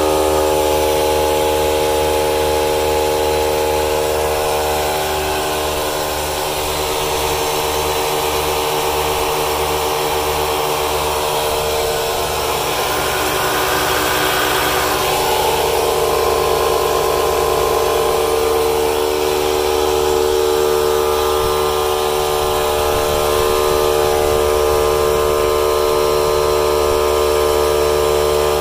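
Several cordless tyre inflators and an 18V Ryobi compressor running together as they pump up tyres: a steady motor drone with several hums layered over one another.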